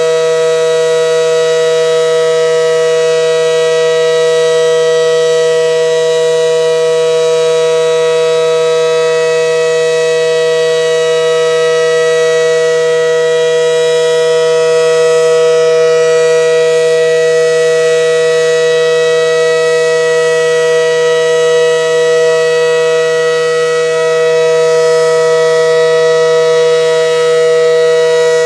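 ACA Allertor 125 outdoor warning siren sounding a loud, steady alert tone, a held chord of two notes with no pitch change. Its rotator is broken, so the horn does not sweep around and the sound never swells and fades.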